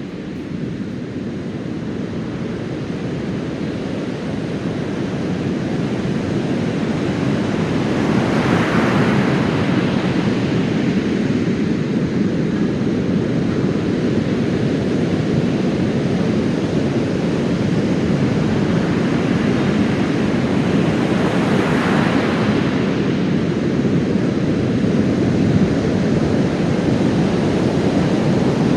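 Heavy surf after a typhoon breaking on a sandy beach: a continuous wash of waves that grows louder over the first several seconds, with two big waves crashing, about eight seconds in and again a little past twenty seconds.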